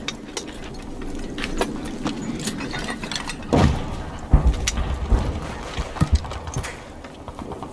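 Battle-scene soundscape: clinking and rattling of soldiers' gear over a steady background rumble, with several dull low thuds between about three and a half and six and a half seconds in.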